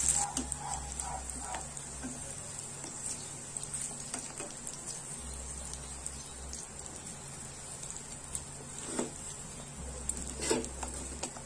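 Slices of Spam sizzling as they fry in a nonstick pan, a steady hiss, with a few light clicks of tongs against the pan as the slices are turned, the clearest two near the end.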